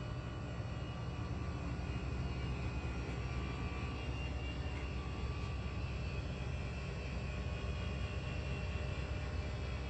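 A steady low rumble with faint high-pitched hum tones over it, unchanging throughout.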